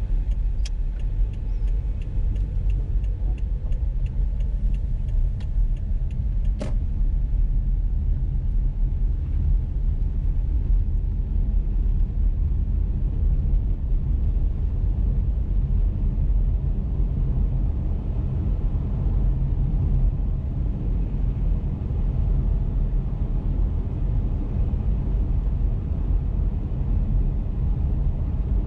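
Car driving on snow-covered roads, a steady low rumble of road and tyre noise. For the first six seconds a rapid, even ticking runs under it, and a single sharp click follows shortly after.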